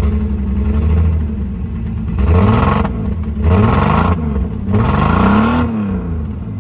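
Car engine running, blipped three times, its pitch rising and falling with each rev, with a rush of noise on every blip.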